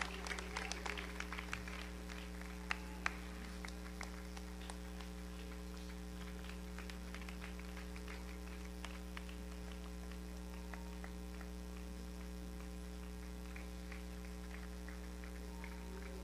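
Steady electrical mains hum, the low buzz of the recording or playback chain, with scattered faint clicks. The clicks thin out over the first two seconds, and two sharper clicks come about three seconds in.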